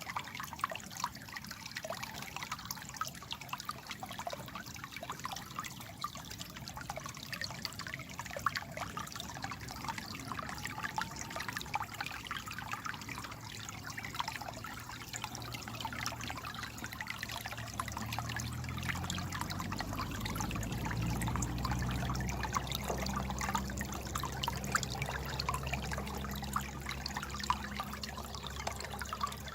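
Small stream babbling and trickling over stones, with many small splashes. From about fifteen seconds in, a low hum swells in underneath and continues.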